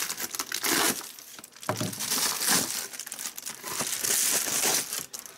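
Plastic bubble mailer crinkling and rustling in several bursts as it is torn open and handled by hand.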